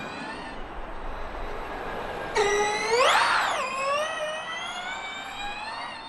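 Gen3 Formula E cars' electric drivetrain whining on track. A first high-pitched whine fades away; then a louder whine cuts in about two and a half seconds in, rises and falls in pitch, and slowly sinks as the car draws away, over a haze of tyre and wind noise.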